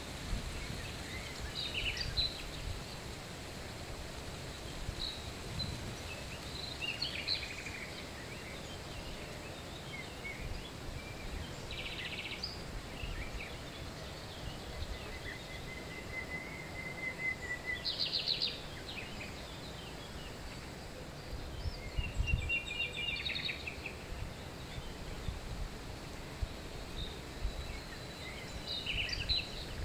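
Small birds calling and trilling now and then in short high phrases, over a steady low background rumble; the loudest are rapid trills about 18 s and 22 s in.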